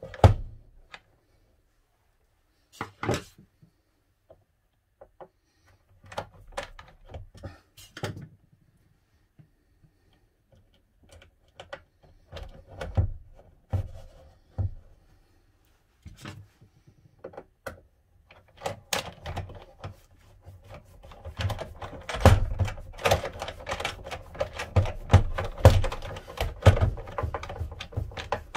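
A hand screwdriver and metal fittings clicking and knocking as a gas strut is fitted to a cabinet door bracket: scattered sharp clicks and knocks at first, then a rapid, almost continuous run of clicks and rattles in the last third.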